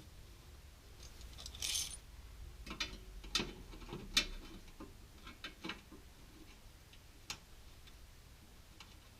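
Light metallic clinks and taps of a sheet-steel top hat section being handled and offered into place for a trial fit, with a short scrape just under two seconds in.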